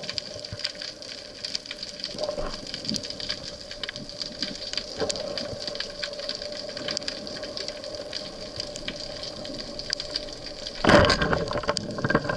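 Underwater ambience full of small crackling clicks over a faint steady hum; near the end a rubber-band speargun is fired, a sudden loud bang followed by a burst of louder noise.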